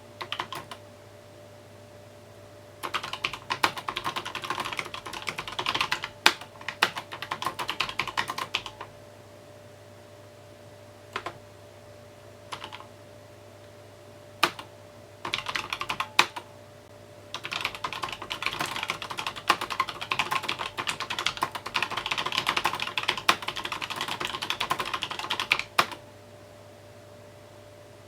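Typing on a mechanical keyboard, in runs of quick keystrokes broken by pauses of a few seconds, with only a few single key presses during the pauses. The longest run comes in the second half.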